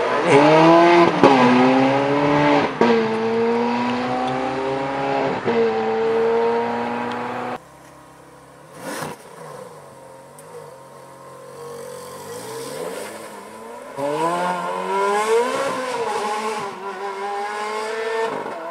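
Ferrari F430 Scuderia's V8 accelerating hard, its pitch climbing through several quick upshifts with short drops between gears. After a cut about halfway through it runs quieter, then from about 14 s it revs up hard again and fades near the end.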